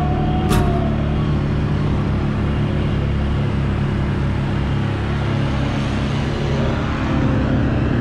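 ATV engines running steadily, with wind and tyre noise rushing over the microphone.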